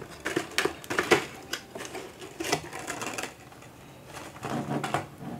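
A small Bluetooth speaker's box and packaging being opened and handled by hand: irregular clicks, scrapes and rustles, with a short quieter lull a little past the middle.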